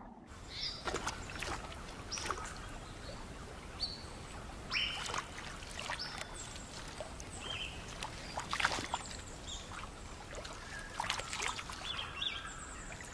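Outdoor river ambience: birds chirping with short, high calls scattered throughout. Water sloshes and splashes at intervals.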